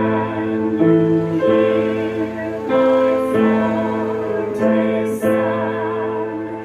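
Music: sustained chords that change about once a second, with a wavering top melody line held over them.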